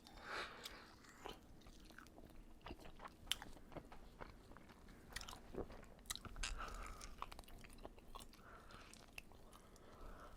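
A person chewing and biting a sauced chicken wing into a close microphone, kept quiet with little lip-smacking: faint, scattered mouth clicks and soft chewing sounds.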